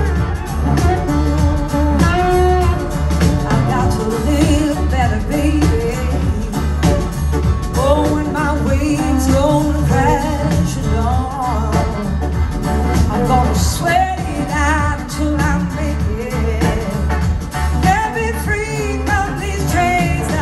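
Live blues-rock band playing: a woman sings lead over electric guitars, acoustic guitar, bass guitar and drums, with a steady pulsing bass beat.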